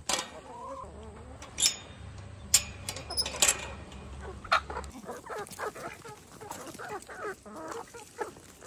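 A flock of backyard chickens clucking all around, with a few sharp knocks in the first few seconds.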